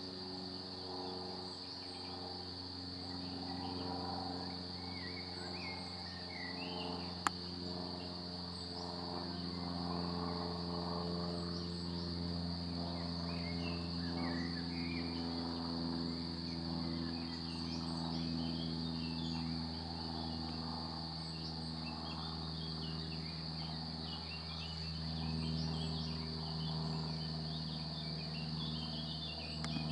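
Steady, high-pitched trill of an insect singing without a break, with faint bird chirps and a low, wavering hum underneath. A single sharp click sounds about seven seconds in.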